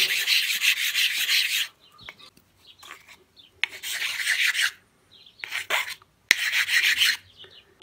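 Hand file rasping across the metal mating surface of a two-stroke brush-cutter cylinder to true it flat: one stroke run of under two seconds, a pause, then three shorter strokes.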